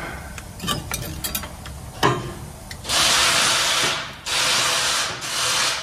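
A few sharp metal clicks from a wrench on a brake caliper bolt, then two long hissing bursts of about a second each.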